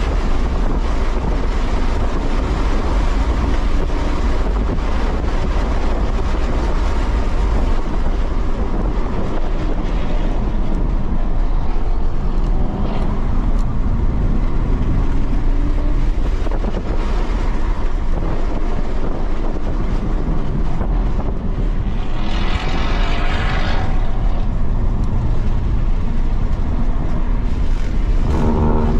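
Tesla Model 3 Performance heard from inside its cabin at track speed: steady road, tyre and wind noise with the electric motor's whine gliding in pitch. Tyres squeal in a wavering way in hard cornering, about 22 seconds in and again near the end.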